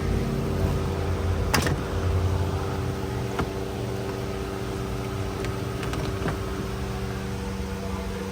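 Steady low mechanical hum with a few sharp clicks, the loudest about a second and a half in.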